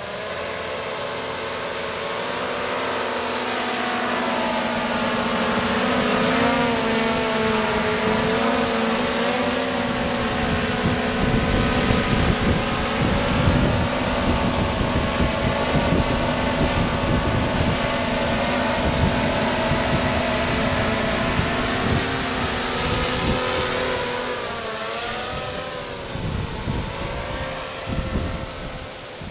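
Y6 multirotor's six 1000 kV brushless motors and propellers running in flight, a steady whine whose pitch keeps rising and falling with throttle changes. From about ten seconds in, gusty wind buffets the microphone with a low rumble.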